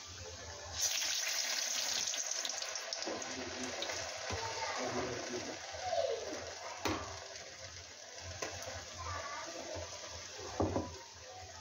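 Urad dal vadas deep-frying in hot oil in an aluminium kadai: a loud burst of sizzling about a second in, as fresh batter goes into the oil, settling into steady bubbling hiss. A few light knocks come later, the loudest near the end.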